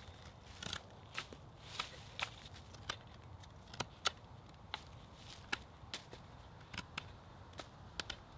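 Knife carving a point on a rhododendron stick: short, sharp scrapes and clicks of the blade shaving wood, irregular, about one or two a second.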